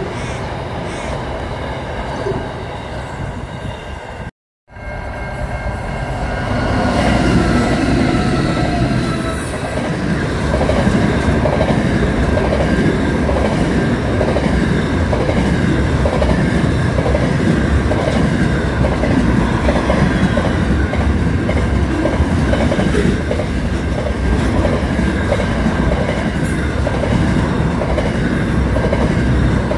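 Intermodal container freight trains rolling past at speed: a steady rumble of wagons, cut off briefly about four seconds in, then a second train passing close with its wheels clicking rhythmically over the rail joints.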